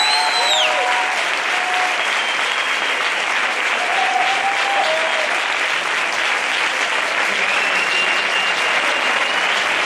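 Audience applauding and cheering, with a short high whistle at the start and a longer one near the end.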